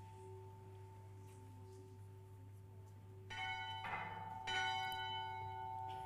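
A bell rung twice, about three and four and a half seconds in, each stroke ringing on with a cluster of overtones. The hum of the bell's ringing lingers beneath between strokes.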